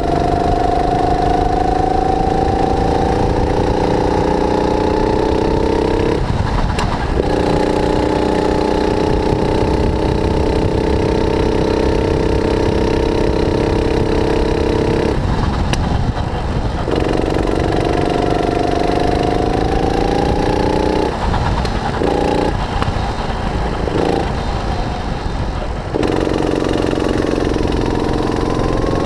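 Onboard sound of a 270cc, 9 hp kart engine, a single-cylinder four-stroke, running hard. Its pitch climbs slowly along the straights and drops away when the throttle is lifted for corners: about six seconds in, around fifteen seconds, and in several short breaks between about 21 and 26 seconds. A steady low rumble lies underneath.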